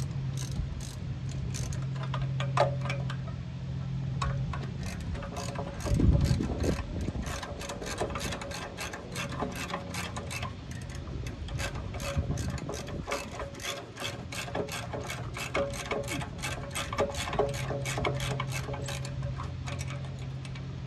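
A socket ratchet on a long extension clicking in a steady run as it is worked back and forth to undo a bolt under the car. There is a low thud about six seconds in, and a steady low hum at the start and again near the end.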